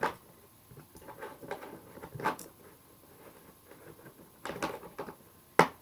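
Scattered knocks and rattles of items being handled and packed into a box, with a sharp click near the end as something is pushed into place.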